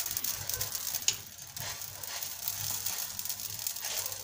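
Malwi flatbread sizzling gently in an oiled frying pan on low heat, with a light steady crackle. A single sharp click about a second in.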